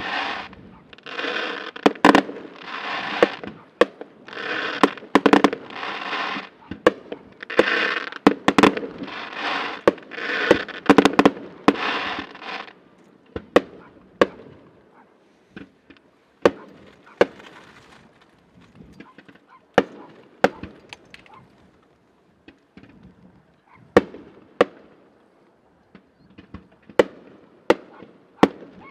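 Fireworks shells bursting, sharp bangs at uneven intervals. For the first twelve seconds a pitched honking sound repeats about once a second over them, then stops, leaving only the scattered bangs.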